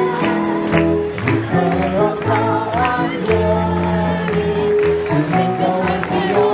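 Several voices singing a song together into microphones over an accompaniment with a steady beat.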